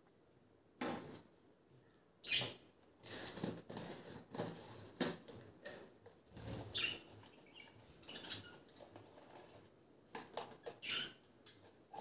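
Budgerigars flapping and fluttering their wings in a wire cage, in short irregular bursts.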